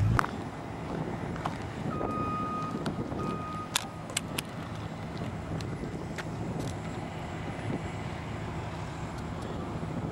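Steady outdoor noise of wind and a low rumble. About two seconds in, a high electronic beep sounds twice, the first about a second long and the second shorter, followed by a couple of sharp clicks.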